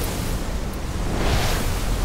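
Animated energy sound effect: a deep, steady rushing rumble, with a swell of hiss about a second and a half in, as fiery tendrils of energy burst and swirl.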